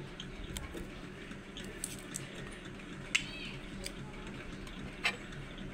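Small objects being handled and set down on a tabletop: scattered light clicks and taps, with two sharper clicks about three and five seconds in, over a low steady background hum.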